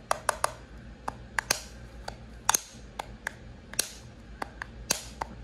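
Black plastic charging case of budget wireless earbuds handled in the fingers, its lid clicking open and snapping shut: a quick, irregular string of sharp plastic clicks.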